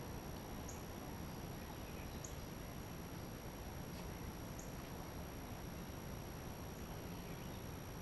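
Faint outdoor ambience with a steady high insect drone and a short high chirp repeating every second or two, over a low even rumble.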